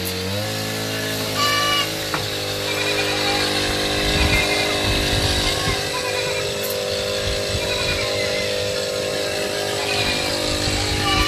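Small petrol engine of a motorised knapsack sprayer running steadily, its pitch rising just after the start and then holding. Goat kids bleat now and then over it.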